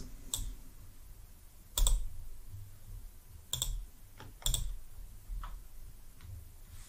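A few separate sharp clicks of computer mouse and keys at a desk, several seconds apart, the loudest about two seconds in, over a faint low hum.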